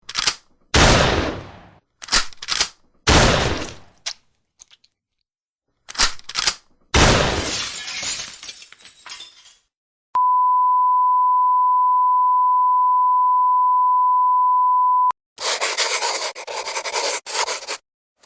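A string of sound effects: a run of sudden smashing crashes, like breaking glass, each dying away, then a steady high-pitched bleep held for about five seconds, like a censor beep, then a burst of harsh scratchy noise near the end.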